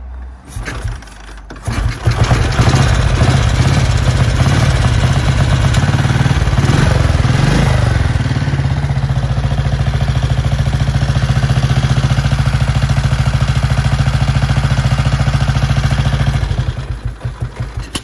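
1937 Rudge Ulster 500cc four-valve, twin-port single-cylinder engine being started with its carburettor tickled and the half-compression lever out; it catches about two seconds in. It is revved up and down a few times, then settles to a steady, fast-beating idle. Near the end it is shut off and runs down to a stop in slowing beats.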